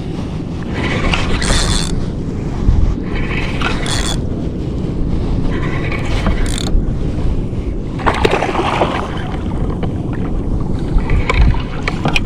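Wind buffeting the microphone in a steady low rumble, with sea water splashing against a kayak's hull in bursts every couple of seconds.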